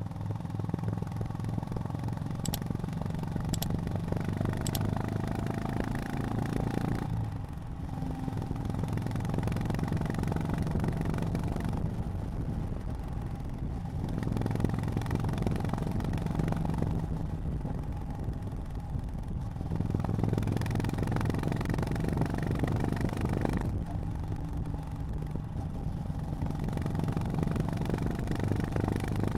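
Honda GB350's 348 cc air-cooled single-cylinder engine running under way on the road. The note falls away four times as the throttle is eased off, then picks up again. Three light ticks come about a second apart a few seconds in.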